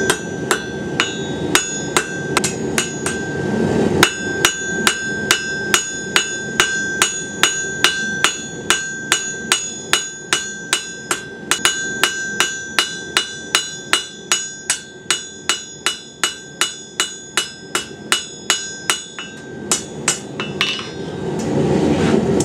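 Hand hammer striking hot steel on an anvil in a steady rhythm, about two to three blows a second, each blow leaving a high ringing tone from the anvil; the blacksmith is shaping the leaf of a forged keyring. A steady rushing noise runs underneath, and the hammering stops near the end.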